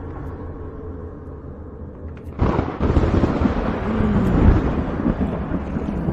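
Thunder sound effect: a low rumble, then a sudden crack of thunder about two and a half seconds in that rolls on loudly to the end.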